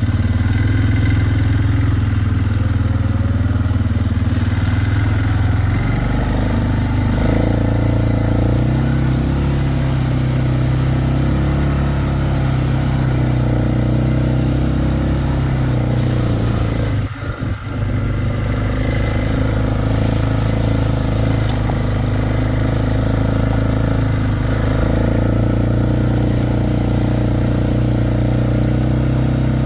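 ATV (four-wheeler) engine running as it is ridden, its pitch shifting a few times as the throttle changes, with a brief dip about seventeen seconds in.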